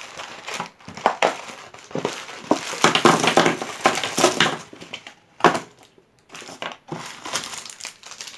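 Bonbons being unwrapped and eaten: wrappers crinkling and the chocolates crunching, in a dense run of sharp crackles about three to four seconds in, with a single sharp crunch about five and a half seconds in.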